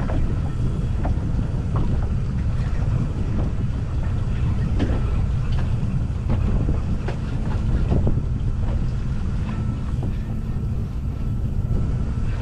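Wind buffeting the microphone on a boat on open water: a steady low rumble, with scattered faint clicks and splashes over it.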